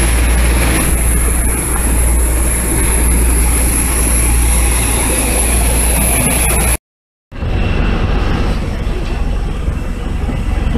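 Loud steady jet aircraft noise on an airport apron, a deep rumble with a thin high whine over it. It cuts off about seven seconds in and resumes half a second later as a slightly quieter stretch of the same kind of noise.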